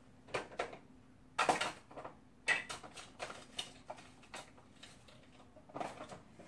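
About a dozen irregular light clicks and taps, the loudest about one and a half seconds in: small sewing tools being picked up and set down on a table.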